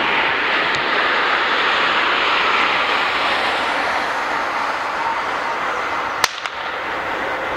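Jet engines of an Air Berlin Airbus A320-family airliner on final approach, a steady, loud rushing noise that eases slightly as the plane passes and descends toward touchdown. A single sharp click about six seconds in.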